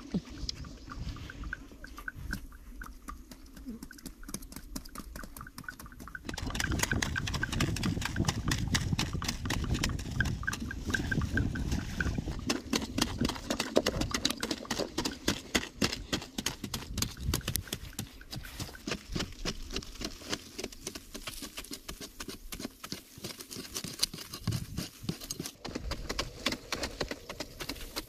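Wooden digging sticks jabbing into dry earth over and over, a dense run of thuds and scrapes from two people digging, louder from about six seconds in.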